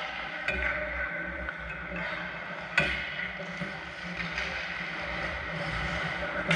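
Ice hockey play on the rink: skates scraping the ice under a steady rink noise, with a few sharp clacks of stick or puck, the loudest nearly three seconds in.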